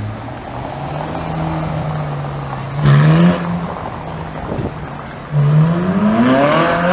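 Ferrari 458 Spider's V8 engine at low revs, blipped once about three seconds in, then accelerating hard from about five seconds in with its pitch climbing steeply; the acceleration is the loudest part.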